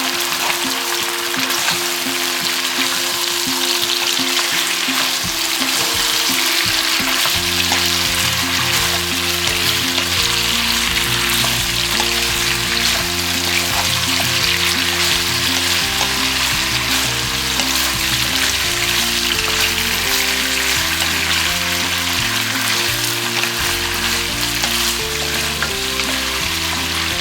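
Three-cup chicken frying in a hot pan, a steady sizzle as the dark cooking wine and sauce cook down around the chicken. Background music plays underneath.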